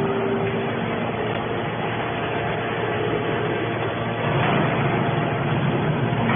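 Heavy machinery running steadily, the engine and hydraulics of a scrap baler at work. Its low rumble swells about four seconds in.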